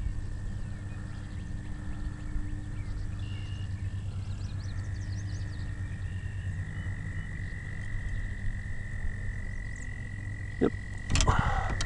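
Frogs trilling in one long, unbroken high note, a second trill taking over a little higher about halfway through, over a low rumble, with a couple of knocks near the end.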